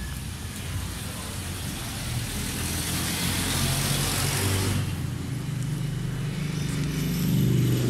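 A motor vehicle engine running, its low hum steady and growing stronger near the end, with a broad rush of noise that builds from about two seconds in and drops away at about five seconds.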